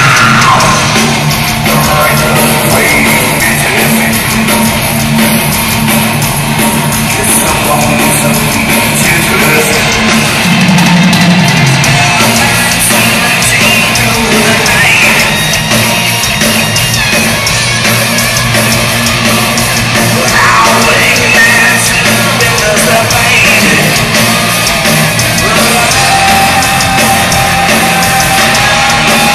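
Heavy metal band playing live in a large concert hall: distorted electric guitars, bass and drums at full volume, with yelled, sung vocals over them.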